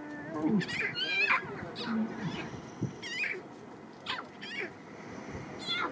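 Lion cubs mewing: a series of short, high-pitched calls with wavering pitch, coming every half second or so.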